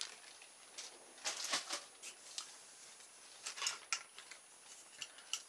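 Faint handling noises: soft rustles and light taps of a plastic bag of drinking straws and a straw being handled, in a few short bursts, the clearest about a second and a half and three and a half seconds in.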